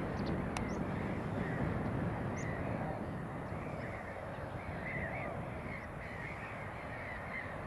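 A flock of birds calling over a field being ploughed: many short, overlapping calls, thickest in the second half, over a steady low rumble.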